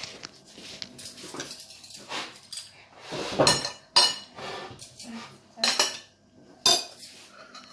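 Dishes and cutlery clinking on a table: a scattering of sharp clinks and knocks, some ringing briefly.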